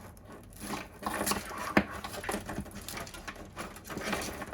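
Power supply cables being handled and pulled about, rustling and scraping with irregular light clicks of plastic connectors, one sharper click a little under two seconds in.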